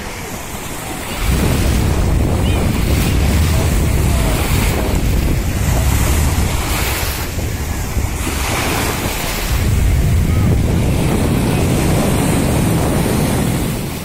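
Wind buffeting the microphone in a heavy low rumble that starts about a second in and eases off near the end, over small sea waves washing onto a sandy shore.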